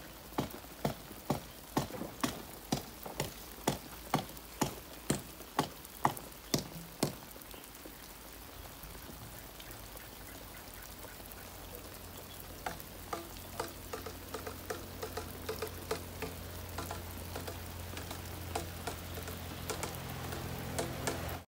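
Greenhouse overhead sprinkler irrigation spraying water with a steady hiss. A run of sharp ticks, about two a second, sounds for the first seven seconds. A low steady hum comes in about ten seconds in, with fainter ticks over it.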